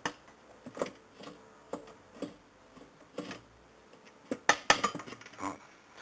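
Metal clicks and clinks of a homemade long T-wrench and 10 mm socket being worked counterclockwise on the bolt inside a Brastemp top-loader's agitator spin tube, loosening it. The knocks come at uneven intervals, with a quicker, louder run of clinks about four and a half seconds in.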